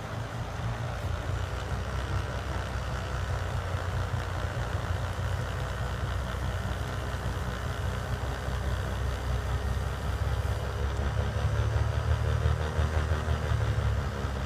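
New Holland skid steer's engine running steadily while it drives an FFC snowblower attachment, getting louder about three quarters of the way through.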